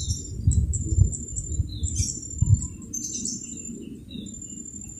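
Birds chirping over and over in short, high notes, over an irregular low rumble that eases off after about two and a half seconds.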